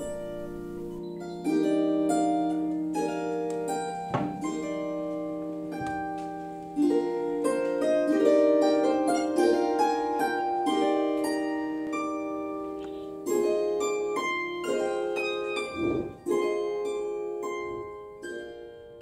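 Background music on a plucked string instrument with a harp-like sound: a slow melody of ringing notes over a held low note, fading out near the end.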